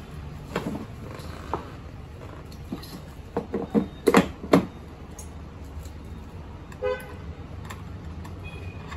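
Plastic wheels of a children's ride-on electric motorbike knocking and clattering as they are fitted onto the rear axle, with a cluster of sharp knocks between about three and four and a half seconds in. A short pitched toot about seven seconds in.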